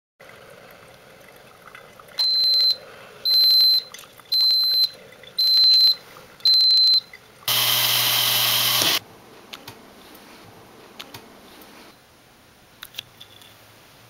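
Mr. Coffee FTX41CP coffee maker sounding five high-pitched beeps about a second apart, its alert that the brew is done. Then an electric coffee grinder runs briefly, for about a second and a half.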